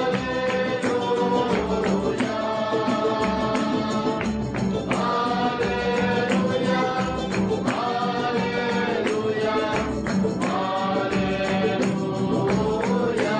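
A group of voices sings a psalm hymn in unison to strummed acoustic guitars, with a tambourine shaken in time.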